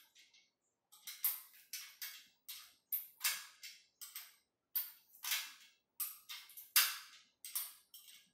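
Spanner working a bolt on the steel base of a treadmill upright: a run of sharp metallic clicks, roughly two a second, starting about a second in.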